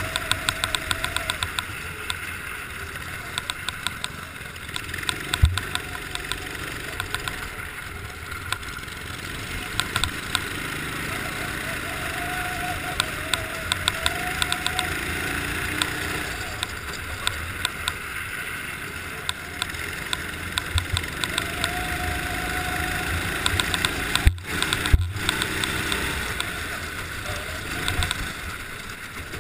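Racing go-kart engine running on board the kart, its note rising and falling with the throttle, with frequent sharp clicks and knocks over it.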